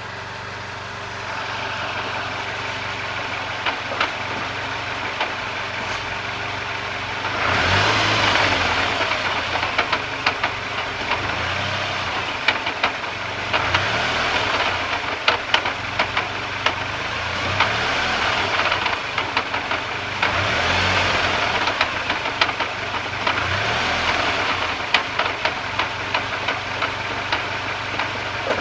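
Car engine idling, with the throttle lightly blipped about five times so the revs rise briefly and settle back to idle. Sharp clunks recur throughout, more often around the blips: the clunking noise under investigation.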